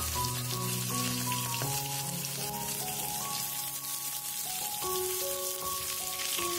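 Tofu and tempeh pieces sizzling and crackling as they fry in a little oil in a nonstick wok, with background music of held, changing notes.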